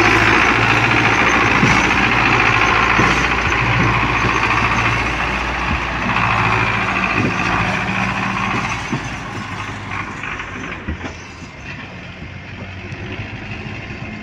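Belarus tractor's diesel engine working under load, hauling a heavily laden sugarcane trolley. Its note swells and dips every second or so, then grows fainter from about nine seconds in as the tractor moves away.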